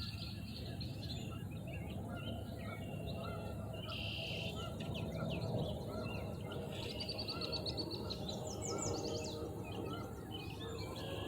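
Small songbirds chirping and trilling in short, repeated calls over a steady low background rumble of outdoor noise.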